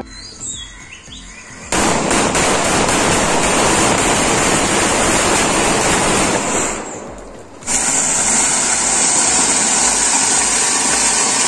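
A few bird chirps, then about two seconds in a string of firecrackers starts bursting in rapid, continuous crackling that dies away after about five seconds. Then a fountain firework (flowerpot) hisses steadily.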